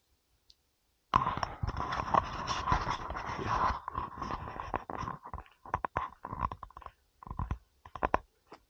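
Close rustling and scraping with many small knocks, starting about a second in and running for several seconds, then a few short separate knocks near the end.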